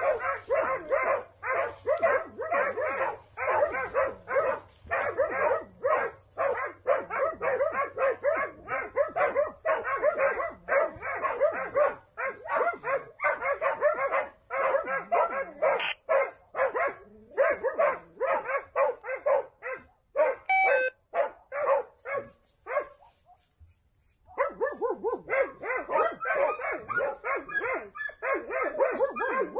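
Hunting dogs barking steadily in rapid, repeated barks while on wild boar in a citrus orchard. Near the end the barking stops for about two seconds, then starts again.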